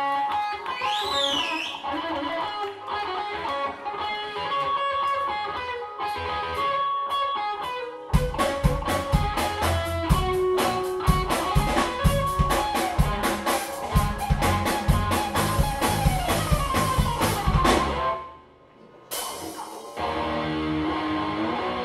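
Live grunge rock band playing an instrumental passage. Electric guitar plays held and bending notes with little low end for about eight seconds, then drums and bass guitar come in hard. Near the end a note slides down, the band cuts out for about a second, and the guitar carries on.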